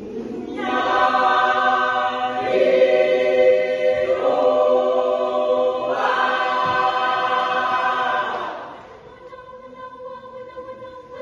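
Mixed a cappella choir singing loud sustained chords that shift several times, then dropping suddenly to a soft held chord about nine seconds in.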